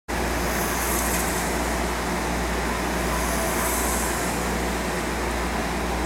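Steady low mechanical hum with an even hiss over it, typical of an aquarium tank's pump and filtration running. The hiss swells gently twice.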